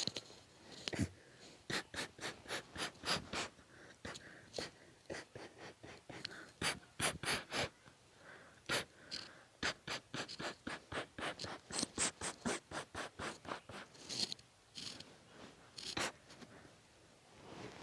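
Sneezing fit: a rapid run of short, sharp sneezes and snorts, about two to three a second, broken by a few brief pauses.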